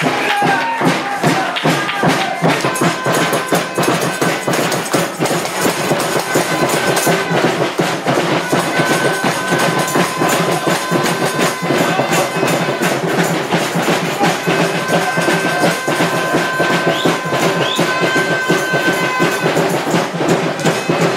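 Loud music with fast, dense percussion and a few long held high notes.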